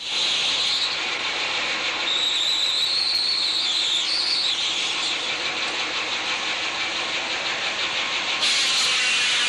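Sawmill machinery running steadily, with a high saw whine that rises and then dips about two to four seconds in.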